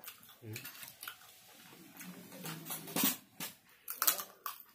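Close-up eating sounds of sauced fried chicken lollipops eaten by hand: wet chewing, lip smacks and finger licking. Scattered sharp clicks, the loudest about three and four seconds in, with a short low hum about two seconds in.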